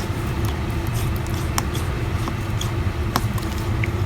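A few light clicks and taps of small parts and tools being handled while an iPhone SE is reassembled, over a steady background hum.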